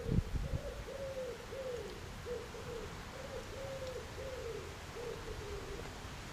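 A pigeon cooing: a run of short, low coos, about two a second, that stops near the end. A dull low thump comes right at the start.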